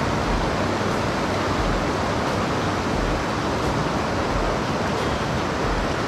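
Steady rushing of river water, an even wash of noise with no let-up.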